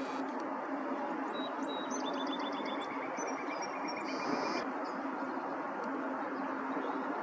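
Small birds chirping, with a couple of quick high trills, over a steady background rush and low hum. A short high hiss comes about four seconds in.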